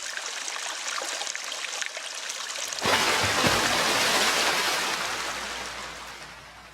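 A rushing, hiss-like noise that grows louder and fuller about three seconds in, then fades away toward the end.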